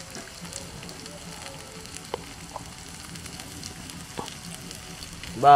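Chicken pakoras sizzling steadily in oil on a large flat iron pan over a wood fire, with a few light clicks. A loud call with falling pitch cuts in right at the very end.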